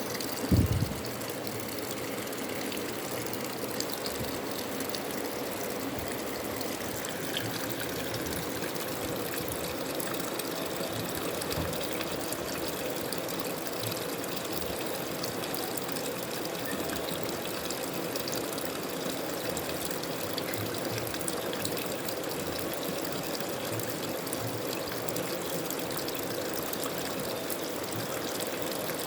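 Washing machine running, with steady water noise and a steady hum throughout; one loud knock about a second in.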